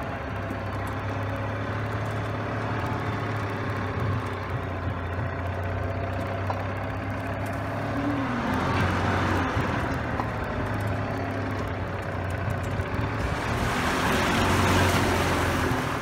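Golf cart driving along a rutted dirt trail, its motor running with a steady low hum. A louder rushing noise builds over the last two or three seconds.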